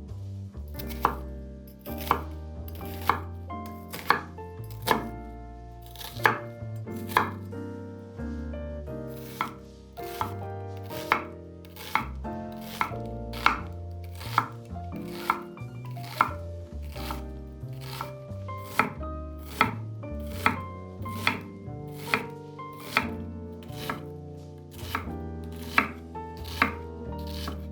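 Kitchen knife chopping vegetables on a cutting board, with sharp, regular strokes about once a second that quicken to about two a second.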